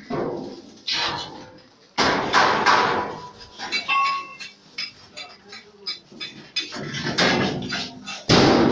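Metal bangs and clanks from handling a welded steel vehicle body, its door and its frame. The two loudest bangs come about two seconds in and near the end, with smaller knocks between them.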